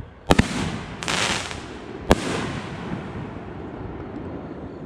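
5-inch canister firework shells firing and bursting in the air. Two sharp bangs come close together, then a short hiss, then another bang about two seconds in, followed by a long rolling echo.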